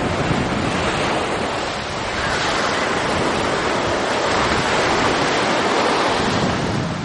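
Sea waves washing onto a sandy beach: a continuous rushing wash that swells in the middle and eases near the end.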